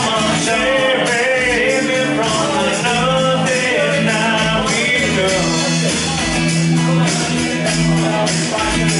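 Live acoustic guitar strumming with a man singing into a microphone through a small PA.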